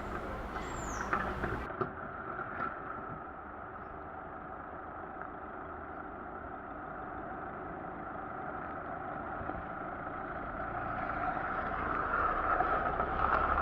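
Car driving: steady engine and tyre noise that grows gradually louder toward the end.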